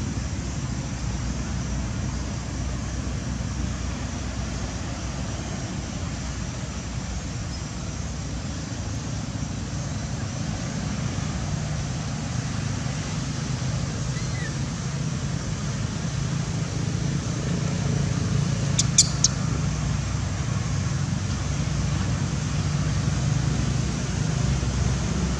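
Steady low background rumble, with a quick run of two or three sharp clicks about two-thirds of the way through.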